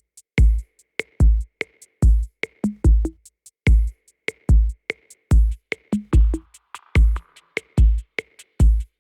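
Electronic background music with a heavy drum-machine beat: deep kick drums about twice a second with sharp snare and hi-hat clicks, and a faint synth line entering about six seconds in.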